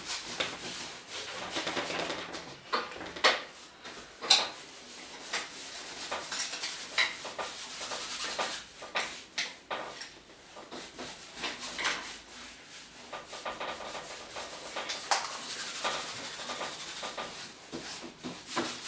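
A paintbrush drawing with thin ochre oil paint on a textured canvas: the bristles rub and scratch across the weave in short, irregular strokes. A couple of sharper scrapes come about three and four seconds in.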